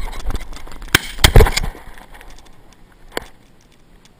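Shotgun blasts at a flying rooster pheasant: sharp loud shots about a second in, the second the loudest, and a fainter single shot about three seconds in.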